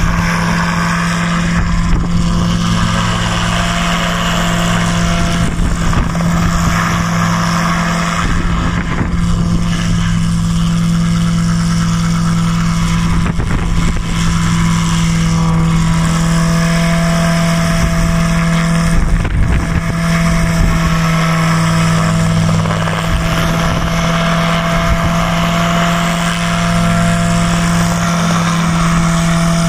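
Homebuilt single-seat helicopter's engine and rotors running steadily at flight power as it hovers just off the ground.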